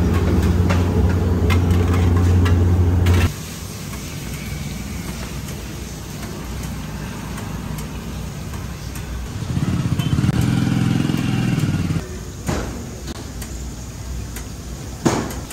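A motor engine runs steadily with a low hum for about three seconds, then cuts off suddenly. A quieter background follows, with a shorter engine hum about ten seconds in and a couple of sharp knocks near the end.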